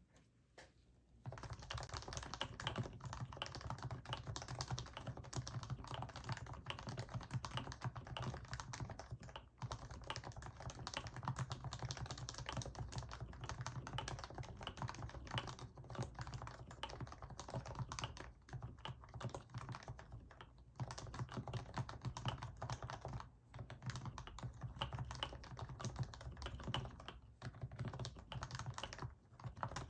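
Continuous fast typing on a Happy Hacking Keyboard Professional BT with fully lubricated Topre electro-capacitive switches, dense keystrokes with brief pauses. The typing starts about a second in.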